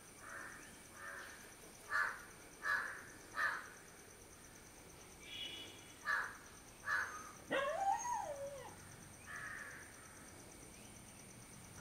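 A crow cawing repeatedly: a run of short harsh caws, three loud ones in quick succession about two seconds in, then more around six and seven seconds. Near eight seconds a call rises and falls in pitch.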